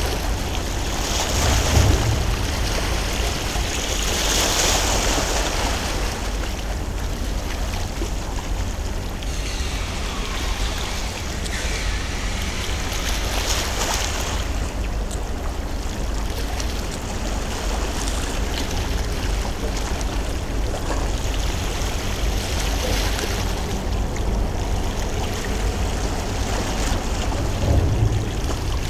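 Water lapping and washing against the shore in swells every few seconds, over a steady low rumble of wind on the microphone.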